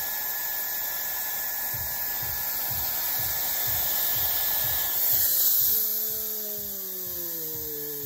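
Gama Professional IQ hair dryer running, a high steady motor whine over a rush of air blowing onto the microphone. About five and a half seconds in it is switched off: the whine stops and the motor winds down with a slowly falling tone.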